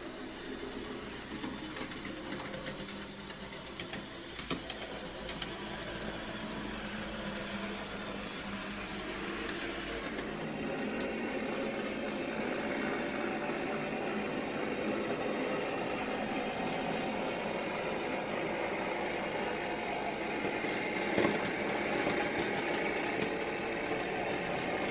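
N gauge model train running on the layout: a steady small-motor whir with wheel and track noise, getting louder about ten seconds in as a goods train comes closer. A few light clicks sound about four to five seconds in.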